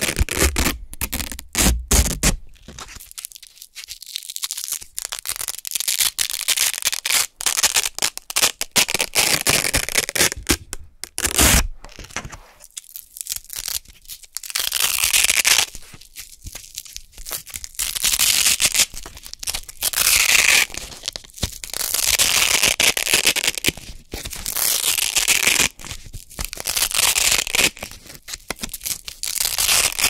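Hook-and-loop (Velcro) circles, hook side and loop side, ripped apart close to the microphone about a dozen times: crunchy, crackling tearing rips, each a second or two long, with short pauses between.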